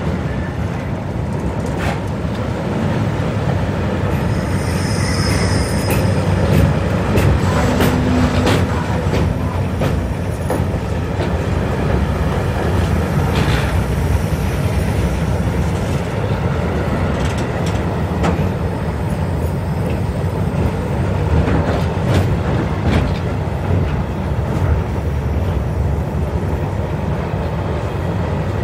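Freight train of loaded flat wagons rolling past close by over a steel truss railway bridge: a steady heavy rumble with scattered wheel clanks and clicks. A brief high squeal comes about five seconds in.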